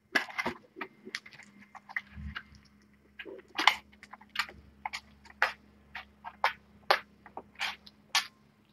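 Kittens scrabbling and pouncing in a cardboard box: a string of short, irregular scratches and taps of claws and paws on cardboard.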